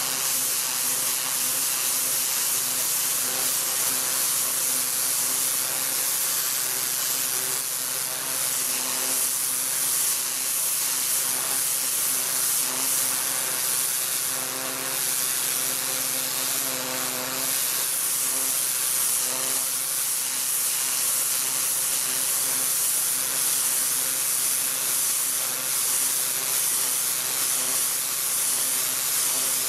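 High-pressure water jet from a Hyundai HYW4000P 4000 psi petrol pressure washer hissing steadily as it blasts onto tarmac, with the washer's petrol engine running underneath as a steady hum.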